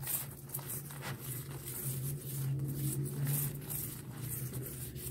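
A steel spoon scrapes over a paratha on a hot tawa, spreading oil, in short irregular strokes, with the oil sizzling. A steady low hum runs underneath.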